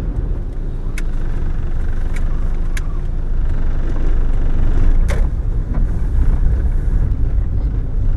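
Inside a car's cabin while it drives slowly: a steady low rumble of engine and tyres, with a few sharp clicks or knocks, the loudest about five seconds in. The rumble grows a little louder about four seconds in as the car rolls onto block paving.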